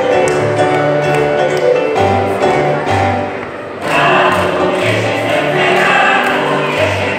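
An instrumental accompaniment with a repeating bass line plays, and about four seconds in a mixed group of women's and men's voices joins in, singing together.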